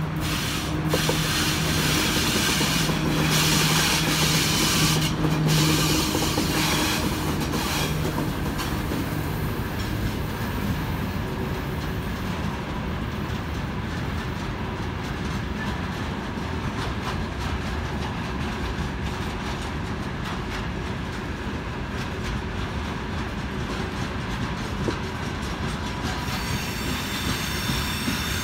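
VL11 electric locomotive passing with a steady hum that fades after about ten seconds, followed by the wheels of a long freight train of tank cars and open wagons rolling steadily past on the rails with faint clatter. Near the end a high wheel squeal joins in.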